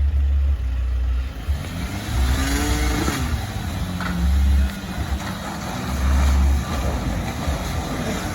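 An off-road vehicle's engine revving as it climbs a steep rocky slope: the engine note rises and then falls about two to three seconds in. Loud low rumbles come and go throughout.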